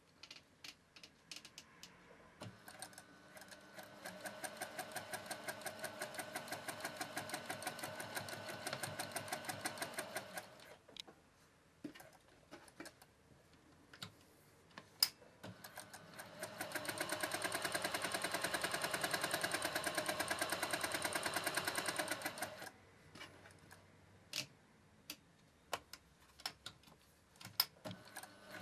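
Singer Professional straight-stitch sewing machine stitching through fabric in two runs. The second run is faster and louder than the first, and scattered single clicks sound between and around them.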